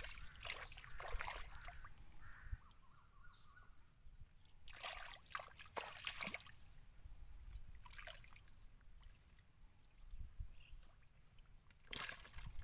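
Hands sloshing and squelching through shallow muddy water, in short splashy bursts every few seconds, as fish are groped for by hand in the mud.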